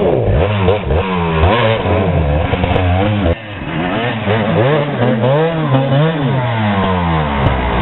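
Enduro dirt-bike engine revving hard and unevenly, its pitch climbing and falling with repeated bursts of throttle, as the bike is forced up a steep rocky step.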